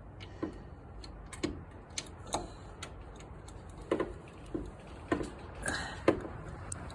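Irregular metallic clicks and knocks of a wrench working the bolts of a truck's steering gear box as they are tightened, spaced about half a second to a second apart, with the sharpest knock about six seconds in.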